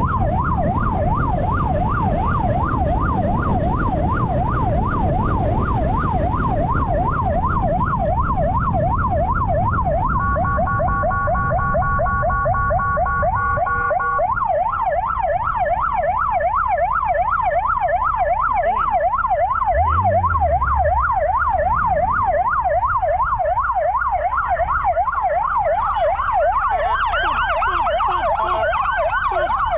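Siren on a Kawasaki GTR1400 police motorcycle sounding a fast yelp, wailing up and down several times a second. About ten seconds in it switches for a few seconds to a different rapid pulsing tone, then goes back to the yelp. Heavy wind and road rumble lies under it at first and drops away about ten seconds in.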